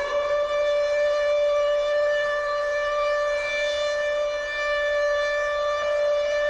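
Civil defence (air-raid) siren sounding a steady, level wail at its top pitch.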